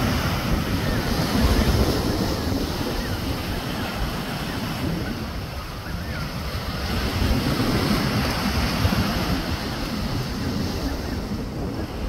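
Ocean surf washing in below the cliffs, with wind buffeting the microphone as a low rumble; the wash swells about a second in and again around seven to nine seconds.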